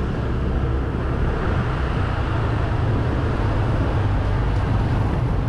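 Honda SH 150 scooter riding along a street: a steady low rumble of its single-cylinder engine, road noise and wind on the camera microphone.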